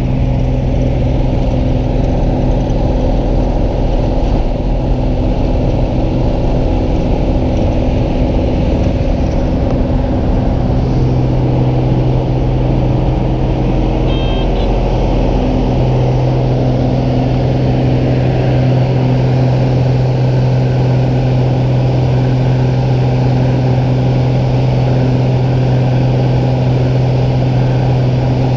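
Single-engine high-wing plane's piston engine and propeller at takeoff power, heard inside the cabin as a loud, steady drone. A low rumble from the wheels rolling on grass fades about two-thirds of the way through as the plane lifts off.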